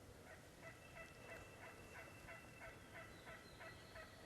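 Faint wild turkey calling: a long, even run of short notes at about four or five a second.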